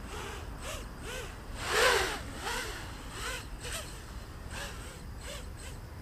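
Diatone GT-M515 racing quadcopter's brushless motors and three-blade propellers whining in the distance, rising and falling in pitch with each throttle blip, one or two swells a second; the loudest comes about two seconds in. A low wind rumble underneath.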